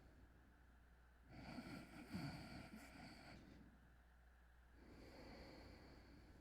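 A person snoring lightly in sleep: a snoring breath in starting about a second in and lasting about two seconds, then a softer breath out a few seconds later.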